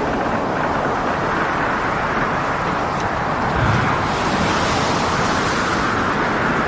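Storm at sea: wind and heavy waves making a continuous rushing noise that swells slightly about halfway through.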